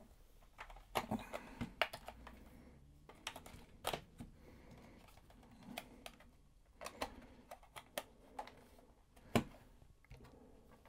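Quiet, irregular clicks and taps of small plastic parts as two AA batteries are fitted into the mini RC car's remote control.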